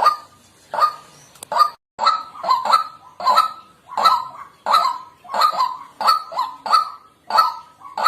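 White-breasted waterhen calling: a fast run of harsh, repeated 'kwak' notes, about two a second, the bird's loud territorial call.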